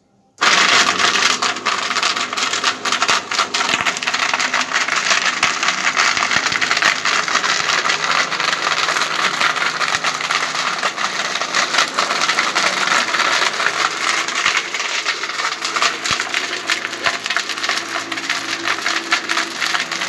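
Homemade 12-volt blender driven by a car radiator-fan motor, switched on about half a second in, its blade smashing dried chicken bones. Bone pieces rattle and crack against the plastic jar in a loud, dense, continuous clatter.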